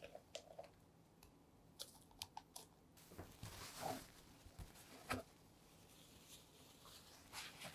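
Faint clicks and taps of a wire whisk against a glass mixing bowl as stiff meringue is scooped and mixed into egg-yolk batter. A soft, longer scraping swish comes about three seconds in.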